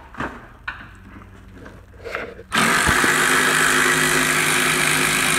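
A few light knocks, then, about two and a half seconds in, a power ratchet starts running steadily, spinning a socket on a bolt in a car door's inner panel. It runs loud and even to the end.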